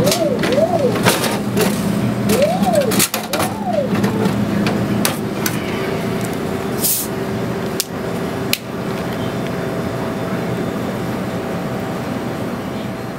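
Glass-front drink vending machine humming, its delivery motor whirring up and down in pitch four times in the first four seconds while the bottle is carried to the door, with clunks and clicks. About seven seconds in, a short fizzing hiss as the plastic Coca-Cola bottle is twisted open.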